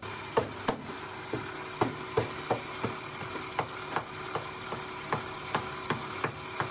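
Small hammer repeatedly striking and crushing dry, caked lumps of lead oxide powder in a shallow metal tray: sharp knocks at about three blows a second, over a steady machine hum.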